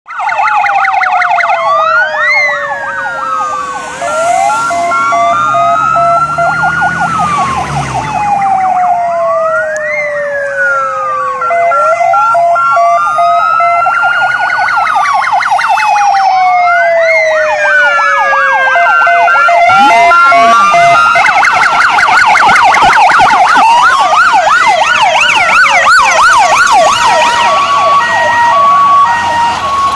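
Several fire engine sirens sounding at once from a convoy on an emergency run: a slow wail rising and falling, a fast yelp and a two-tone hi-lo all overlap. The sirens grow louder about two-thirds of the way through as the trucks draw near.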